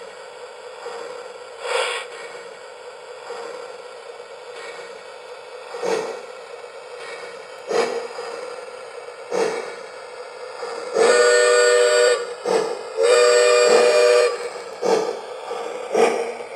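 A Lionel LionChief Plus 4-6-2's onboard Rail Sounds RC speaker plays steam-locomotive sounds as the engine gets under way. Single chuffs a couple of seconds apart are followed by two long steam-whistle blasts, the railroad signal to proceed. The chuffs then come quicker.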